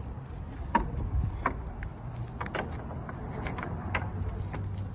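A metal latch on a wooden fence gate being worked by hand: a string of light, irregular clicks and knocks, the sharpest just under a second in, over a steady low rumble.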